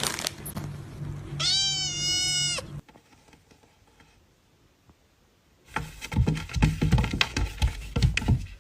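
A cat meows once, a single drawn-out call lasting over a second. After a few seconds of near silence comes a run of irregular knocking and clattering.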